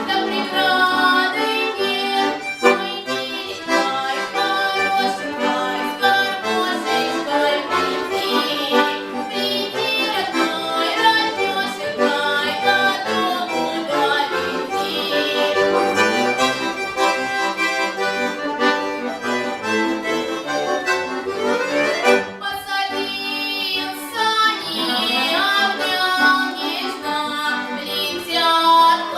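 Accordion playing an instrumental passage of a folk-style song, with sustained chords under a melody line and a fast upward run about 21 seconds in.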